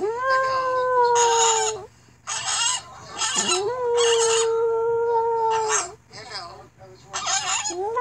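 A dog howling in three long, steady notes, along with short, thin crowing and clucking from a rooster video played on a phone speaker.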